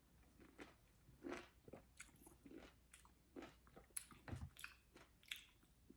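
Faint close-up mouth sounds of someone biting and chewing a juicy lime wedge coated in chamoy sauce and Tajín: scattered wet smacks and soft clicks, with a low thump a little past the middle.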